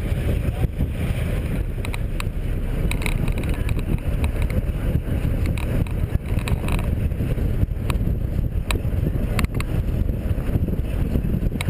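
Road and engine noise from inside a moving minibus taxi: a steady low rumble with wind buffeting the microphone at the open window and scattered rattles and knocks.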